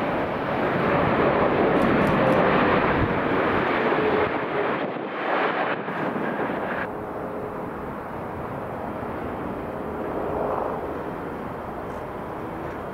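Jet engines of a Swiss Boeing 777 running loud on the runway, an even roar with a faint tone sliding slowly down. After about seven seconds it drops to a quieter, steady jet rumble that swells slightly near the end.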